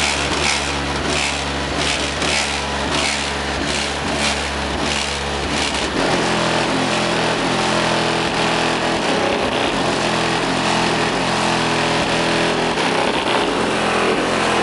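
Chevrolet Tahoe's competition car-audio system playing bass-heavy music at high volume: a deep, steady bass under a beat of about two hits a second. About six seconds in the deepest bass drops out and the music carries on.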